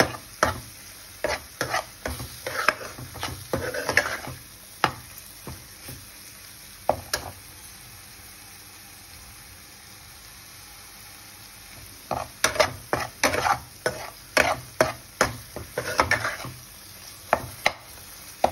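Steel spoon scraping and stirring tomatoes and spices frying in oil in a non-stick pan, over a low sizzle. This is the masala being roasted (bhuna) on a low flame. The stirring stops for several seconds midway, leaving only the sizzle, then starts again.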